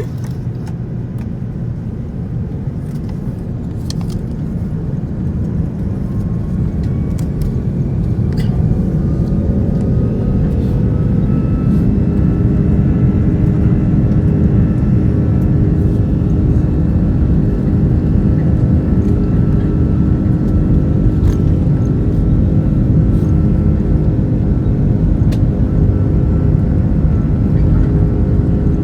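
Airbus A330-300 jet engines spooling up: a loud low rumble grows louder over several seconds, with engine tones sliding upward about eight to twelve seconds in and then holding steady at high thrust. Faint clicks and rattles come through now and then.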